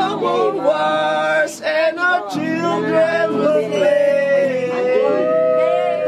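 Background song: a voice singing over backing instruments, with one long held note about two-thirds of the way in.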